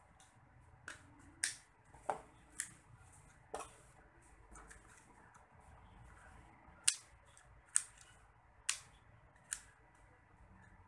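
Sharp plastic clicks and snaps, about nine of them at irregular intervals, from a small plastic toy car with a push-button pop-up feature being handled.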